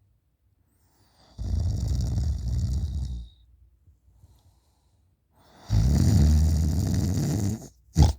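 A person snoring loudly with the mouth hanging open: two long snores of about two seconds each, a few seconds apart, then a short, sharp one near the end.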